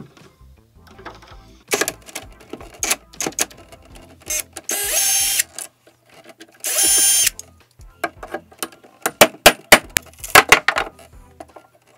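Cordless drill running in two short bursts of about a second each, turning a screw at a metal catch plate. Sharp clicks and knocks of handling come between the bursts, and a cluster of loud knocks comes near the end.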